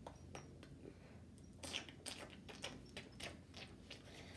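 Faint run of quick mouth clicks and smacks, a person imitating chewing while feeding a plush teddy bear, coming in about a second and a half in.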